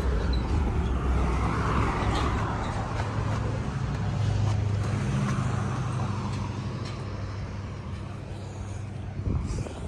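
Car engine running steadily with road or traffic noise; its low hum rises in pitch about four seconds in, then eases and fades toward the end.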